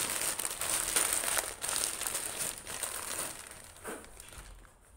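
Paper sandwich wrapper being crumpled up by hand: a dense crinkling that fades out after about three seconds.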